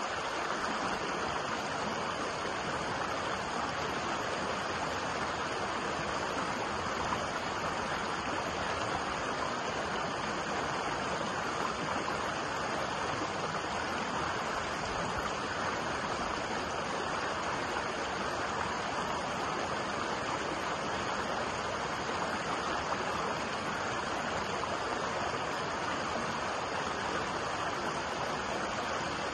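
Small rocky stream running steadily over boulders in shallow white-water cascades, an even, unbroken rush of water.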